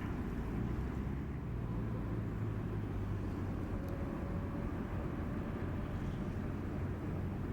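Inland cargo vessel's diesel engine droning steadily as it passes on the river: a constant low rumble with an even hum.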